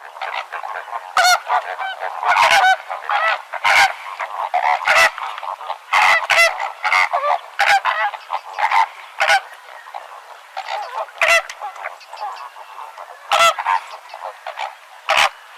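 A flock of flamingos honking: many short calls overlapping, with a louder call about every second.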